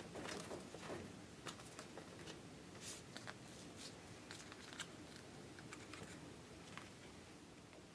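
Faint rustling and small clicks of a thin printed card piece being folded and creased by hand, busiest in the first few seconds.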